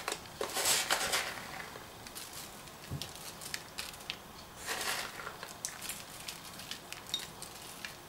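Chopped walnuts rustling and pattering as they are picked by hand from a plastic tray and scattered onto a layer of sour cream and pineapple. There are two louder spells of rustling, one near the start and one about five seconds in, with small clicks and taps in between.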